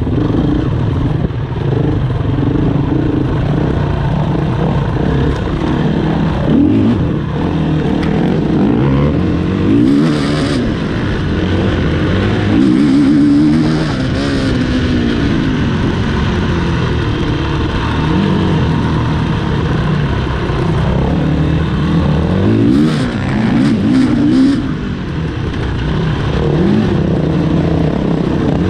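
Enduro motorcycle engine running under load, its pitch rising and falling again and again as the throttle opens and closes.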